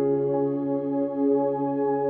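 Soft ambient background music of long held synthesizer-like chords.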